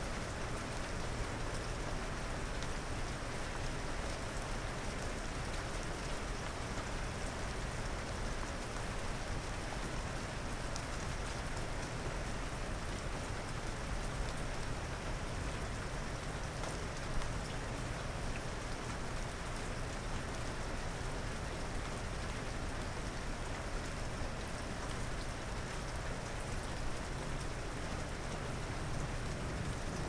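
Steady rain falling, an even hiss with a few scattered louder drops.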